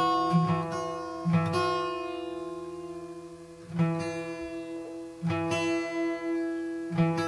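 Acoustic guitar strings plucked one after another and left ringing while the first string is slackened down to D to match the fourth string. One long ringing note wavers evenly in loudness for a second or two near the middle, the beating of two strings that are close to each other but not yet in tune.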